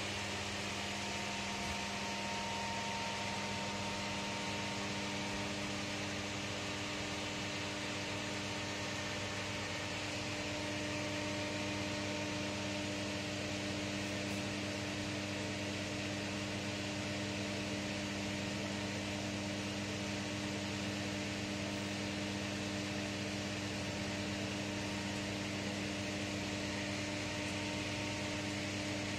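Steady hum with an even fan hiss from the climate-control unit of an enclosed Ferris wheel cabin.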